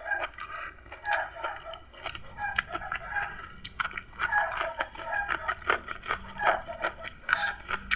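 A person chewing and crunching food close to the microphone, with a string of short wet mouth clicks. A faint steady low hum comes in about two seconds in.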